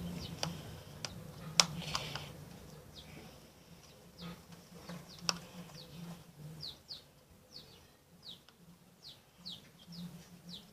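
A small bird chirping over and over in short, quick, falling chirps, more often in the second half. A few sharp clicks in the first two seconds and one about five seconds in, the loudest about a second and a half in.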